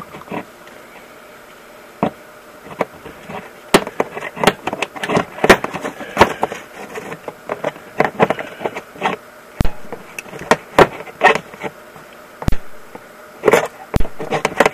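Spark plug, held against the engine and fired by a 12-volt ATV CDI unit through the bike's ignition coil, snapping as its spark jumps the gap: a run of sharp, irregularly spaced clicks, several a second in places. The spark is meant to test the new CDI ignition.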